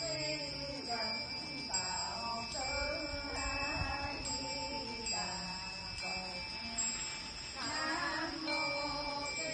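Music with a melodic voice singing or chanting in short phrases of about a second each, separated by brief pauses, over a steady thin high tone.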